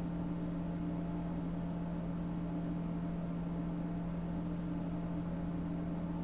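Steady machine hum at one fixed low pitch, with fainter higher tones above it and no other events.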